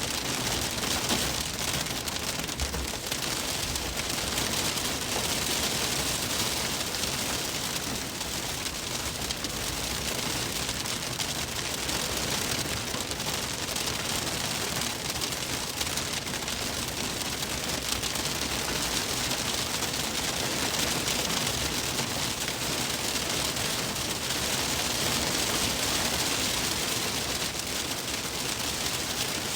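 Hail pelting a car's roof and windshield in a dense, steady clatter of rapid ticks.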